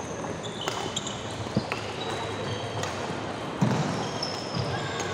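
Badminton doubles rally: sharp racket strikes on the shuttlecock and court shoes squeaking briefly on the floor, with a heavier footfall thump about three and a half seconds in.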